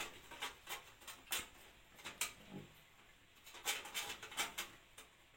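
Scattered light clicks and taps of a thin sheet-metal motherboard I/O shield being handled and pressed into the rear opening of a computer case.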